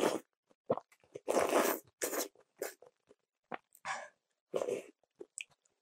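Kalguksu noodles in broth slurped off a wooden spoon in a series of hissing slurps, the longest about a second and a half in, with wet chewing clicks between them.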